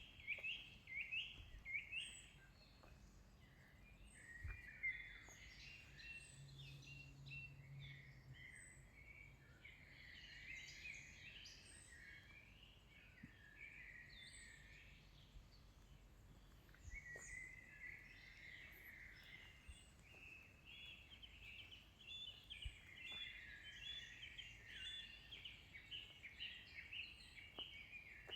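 Faint chorus of songbirds, many overlapping chirps and trills, with a thin high note repeating about every second and a half.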